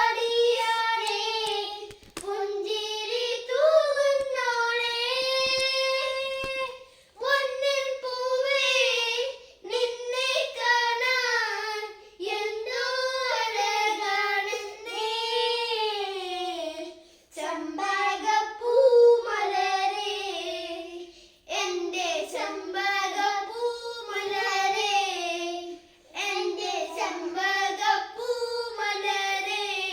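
A child singing a Malayalam folk song unaccompanied, in phrases of a couple of seconds with short breaths between.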